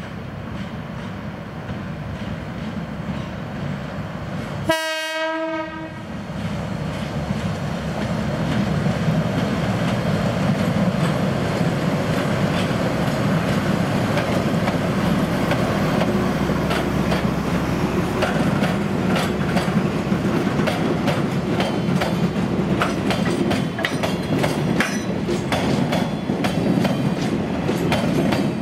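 Seino Railway DD403 diesel locomotive giving one short horn blast about five seconds in, its engine running as it approaches, then loaded limestone hopper wagons rolling past with their wheels clicking over the rail joints.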